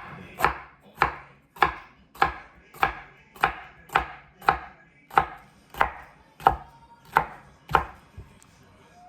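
Knife chopping on a cutting board: about thirteen sharp, evenly spaced strikes, roughly one every half second, stopping about a second before the end.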